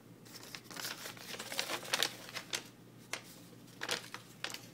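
Paper sheets rustling and crinkling as they are handled, with scattered light, irregular crackles and taps.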